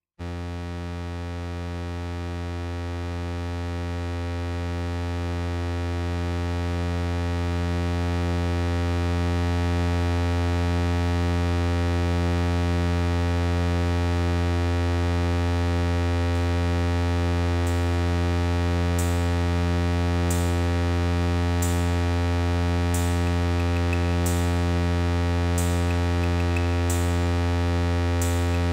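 Electronic music: a low synthesizer drone starts suddenly, swells slowly over the first ten seconds, then holds steady. About two-thirds of the way in, a high tick enters and repeats about every second and a quarter.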